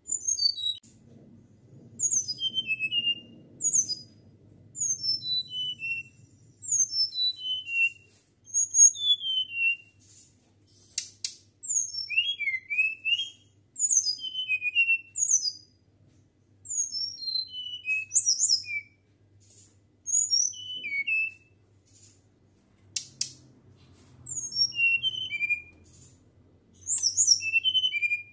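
Caged flycatcher (sikatan) singing: short phrases of clear, flute-like whistled notes that slide downward from high to lower pitch, repeated every couple of seconds with brief pauses between phrases.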